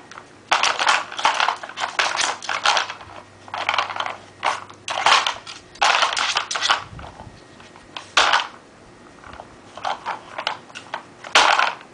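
Nina Ottosson Tornado treat puzzle being worked by a dog, its pieces scraping and clattering in repeated short bursts as he paws and noses at it to get the treats out.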